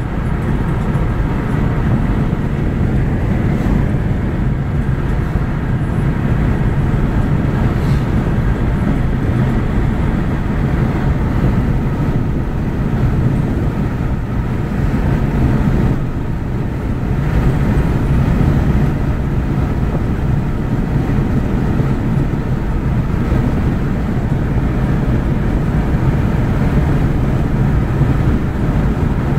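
Steady low rumble of a car driving at highway speed, heard from inside the cabin: tyre and road noise with the engine underneath.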